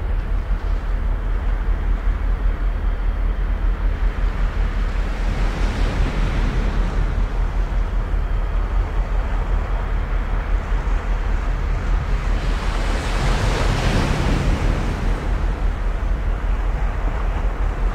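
Small waves washing on the fjord shore under a steady low rumble of wind on the microphone; the wash swells about six seconds in and again, more strongly, around thirteen to fourteen seconds in.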